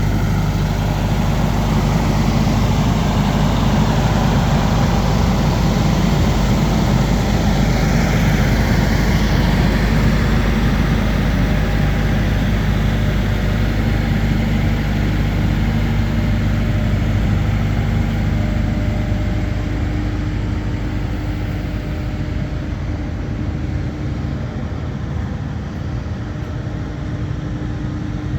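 Comacchio MC 800 drilling rig's engine running steadily, dropping somewhat in level and fullness about twenty seconds in.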